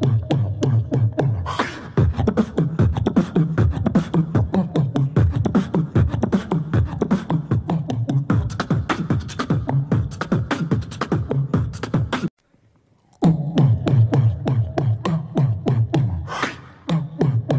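Beatboxing: a mouth-made drum beat of sharp, fast clicks over a sung bass line, all made with the voice and no instruments. It breaks off for under a second about two-thirds of the way through, then starts again.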